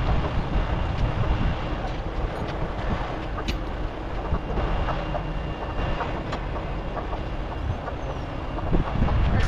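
Low, steady rumble with wind buffeting the microphone, broken by scattered clicks and knocks, with a louder cluster near the end.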